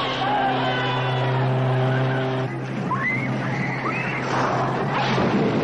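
A vehicle engine drones steadily under scattered shouts and whistles from a crowd. The engine drone cuts off about halfway through, leaving a noisier mix of crowd shouting.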